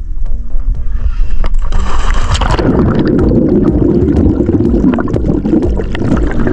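Background music, then about two seconds in a splash as a diver drops from the boat into the sea, followed by a dense bubbling rush of water heard on the camera underwater.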